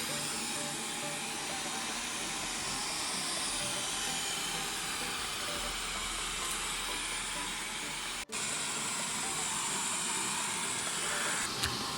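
Cecotec Conga 3890 Titanium robot vacuum running on a hard floor, a steady hissing whir of its suction fan and brush. The sound cuts out for an instant about eight seconds in, and there are a couple of short clicks near the end.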